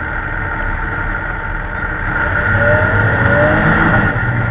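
An engine running steadily, getting a little louder for a moment in the middle.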